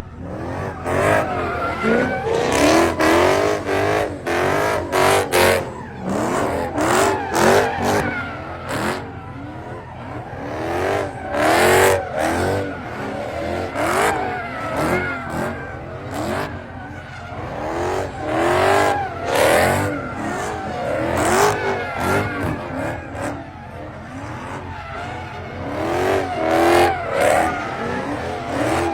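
Car engine revving hard over and over, its pitch sweeping up and down about once a second, with tire squeal.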